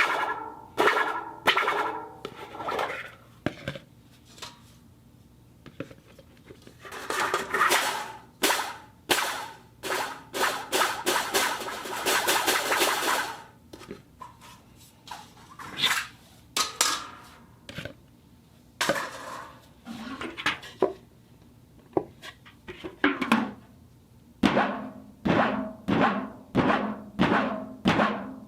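Iron plate and wire netting handled as foley: a long series of metallic hits, each with a ringing tone. In the middle the hits crowd into a stretch of dense rattling and scraping.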